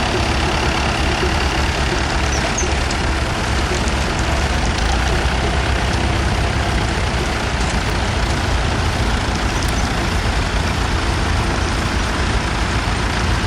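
Vintage tractor engine running steadily, a low rumble.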